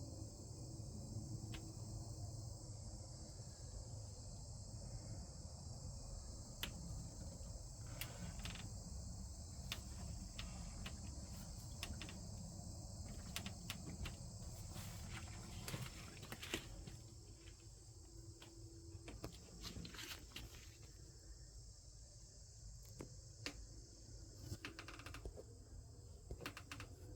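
Steady, faint chorus of crickets, a continuous high-pitched trill, with scattered sharp clicks and a low rumble beneath that eases after about 16 seconds.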